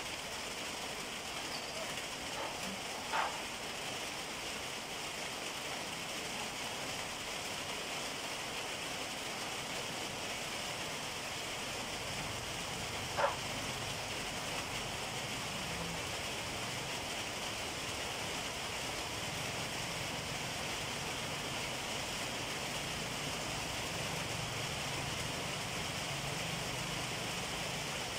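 Steady outdoor background hiss with no speech, broken by two short, sharp taps, one about three seconds in and one about thirteen seconds in.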